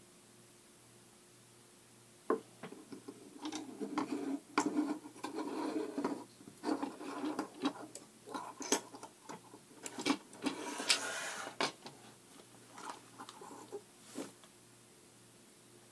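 Close handling noises as fingers work a small resistor and a toy's circuit board with its wires: irregular light clicks, taps and rubbing. They begin about two seconds in and stop shortly before the end.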